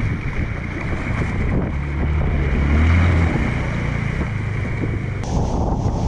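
Motorcycle riding through shallow floodwater: a steady rush of splashing water thrown up by the wheels over the engine's low drone, which swells about two to three seconds in. Wind buffets the microphone, and the sound changes abruptly just past five seconds.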